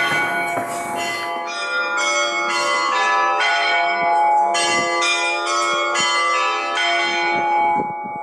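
Monastery church bells ringing a peal: several bells of different pitch struck in quick, uneven succession, their ringing overlapping. The peal stops shortly before the end.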